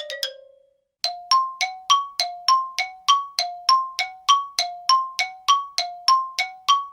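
The tail of a falling run of tones fades out, and about a second in a comedy sound effect starts: rapid metallic dings, about three strikes a second, alternating between two pitches like a hi-lo bell.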